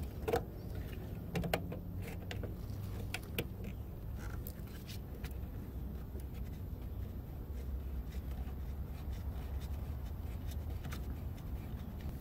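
A few light clicks and taps as gloved hands handle the fuel-line fitting on a car's inline fuel filter, mostly in the first few seconds, over a low steady background rumble.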